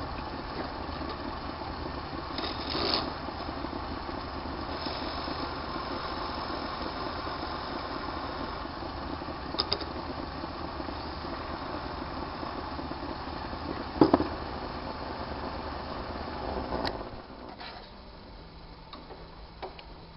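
Small belt-driven lathe running steadily while hand chisels scrape a spinning bone blank, with a few sharp clicks along the way. The sound drops noticeably quieter about three-quarters of the way through.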